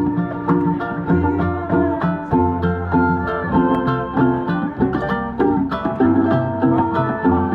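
Keroncong ensemble playing: small ukulele-like strummed and plucked strings in a quick, even rhythm over a steady bass line, with a bowed string sounding above.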